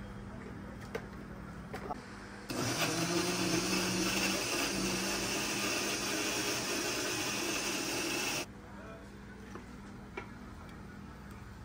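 Electric countertop blender motor running for about six seconds, blending a fruit drink. It starts suddenly a couple of seconds in and cuts off abruptly, with a few light clinks before and after.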